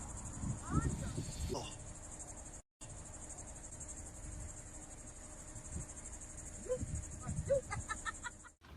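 Insects chirring steadily in a high, rapidly pulsing chorus, with a brief dropout a little under three seconds in.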